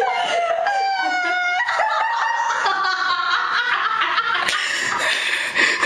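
Girls laughing uncontrollably in high-pitched, shrieking fits of laughter.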